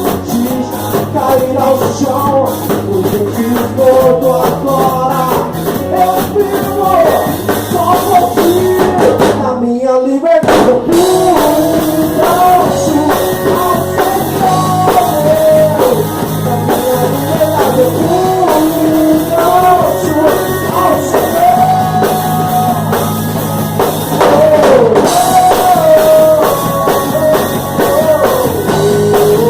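A band playing a rock-style worship song: drum kit and bass keeping a steady beat under a wandering melodic lead line, with no lyrics sung.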